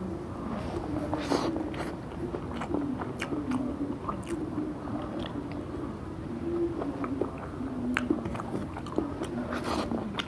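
A person chewing and biting food close to the microphone, with many short wet mouth clicks and smacks.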